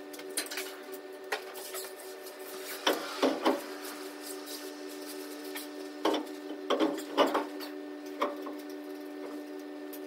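Scattered knocks and clinks of a truck wheel being hung on the rear hub and its lug nuts started by hand, over a steady low hum.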